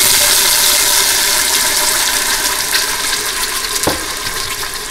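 Blended onion, garlic and tomato sofrito hitting hot olive oil in a stainless steel pot: a loud, steady sizzle that eases off gradually. A single knock about four seconds in.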